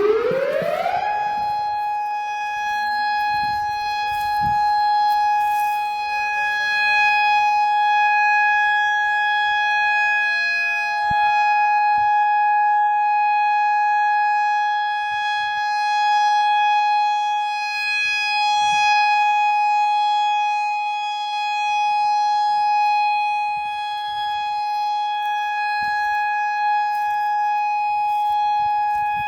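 Federal Signal EOWS 612 electronic outdoor warning siren sounding its steady alert signal for a tornado drill. It finishes winding up about a second in, then holds one high, steady tone whose loudness slowly swells and fades. A fainter second tone glides up beneath it a few seconds in.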